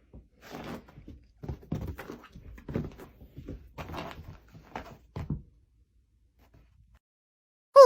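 A string of irregular knocks and thumps, a dozen or so over about five seconds, then a short, loud ringing ding just at the end.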